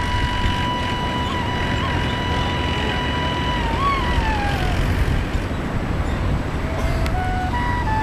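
Instrumental background music: a long held note that wavers and slides down about four seconds in, then a slow melody of stepped notes begins near the end. Underneath runs a steady low rumble.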